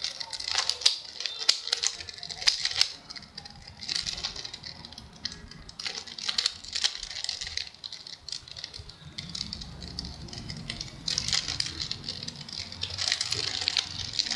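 Plastic layers of a 3x3 mirror cube being turned by hand, clicking and rattling in quick, irregular bursts.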